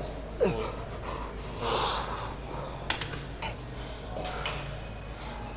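A man breathing hard after the last rep of a lat-pulldown set: a short falling grunt about half a second in, then a heavy exhale around two seconds in. A few sharp clicks are heard as well.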